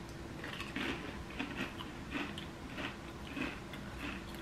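Pringles potato crisps being chewed, a string of soft, repeated crunches about twice a second.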